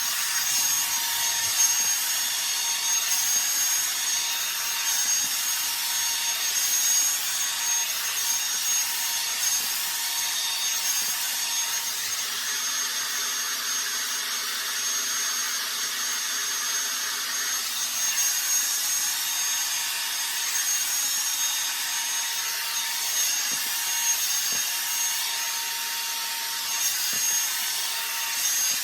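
Revlon One-Step hair dryer brush switched on and running steadily on damp hair, its fan giving a constant rushing blow with a thin high whine over it.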